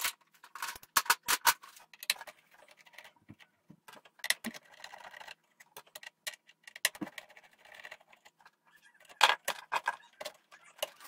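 Scattered clicks and small metallic rattles of a nut driver and mounting hardware while an old pinball rectifier/power supply board is unbolted and pulled from its bracket, in clusters near the start, about four seconds in and about nine seconds in.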